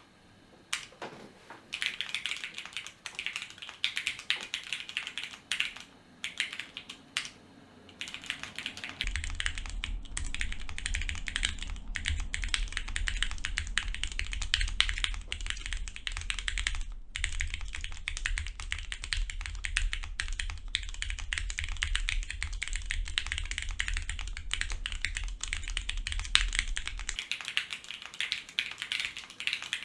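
Continuous fast typing on a custom mechanical keyboard with linear Cherry MX Black switches on TX 55g springs, an aluminium plate and XMI Wubi keycaps: a dense run of keystroke clacks. A steady low hum sits under the typing through the middle stretch.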